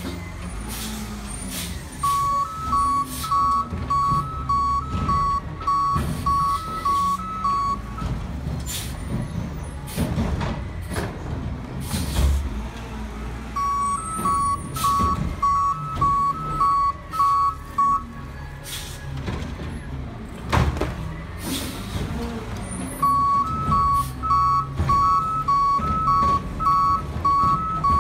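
Natural-gas garbage truck's engine running with its reversing alarm beeping in three spells, about one and a half beeps a second, and a few sharp clanks between the spells.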